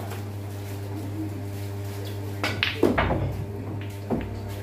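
Pool balls clacking together on a billiard table: a quick cluster of sharp clacks about two and a half to three seconds in, then one more click about a second later, over a steady low hum.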